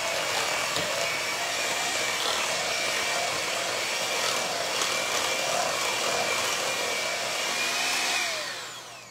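Electric hand mixer running steadily, its beaters churning a thick cream cheese mixture in a stainless steel bowl. It is switched off near the end, its whine falling as it spins down.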